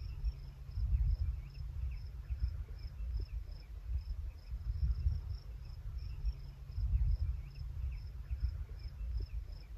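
Crickets chirping: a high, even chirp repeated a few times a second, over wind rumbling and buffeting on the microphone.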